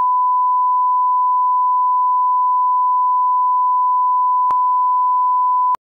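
Steady 1 kHz sine-wave reference tone, the test tone that plays under SMPTE colour bars, cutting off abruptly just before the end.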